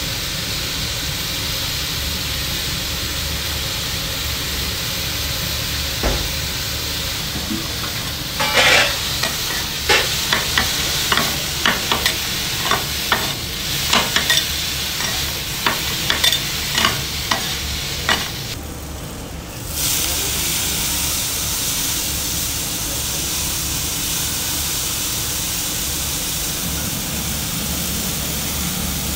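Food sizzling on a hot flat-top griddle, with a run of sharp metal clacks through the middle as two steel scrapers chop and turn chopped meat, mushrooms and carrot against the plate. The sizzle dips briefly after the clacking, then carries on steadily.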